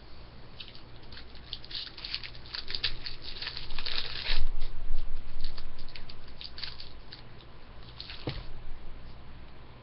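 Crackling, crinkling and tearing of a foil Upper Deck hockey card pack being opened, with the cards handled; the crackle is loudest about halfway through. There is a single sharp tap near the end.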